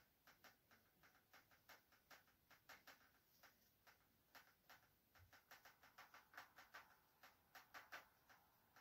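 Faint felt-tip marker strokes on a whiteboard: short, irregular squeaks and taps as words are written, several each second, a little busier in the second half.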